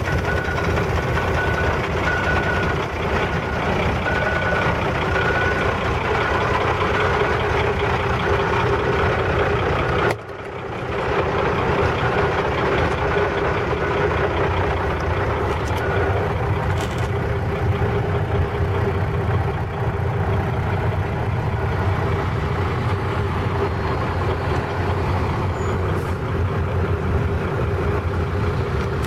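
A fire truck's engine running steadily, with a low hum and steady whining tones. The sound drops out briefly about ten seconds in, then picks up again.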